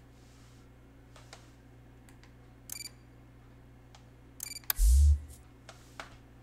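Low steady room hum with two short clicks, then a brief loud low thump about five seconds in.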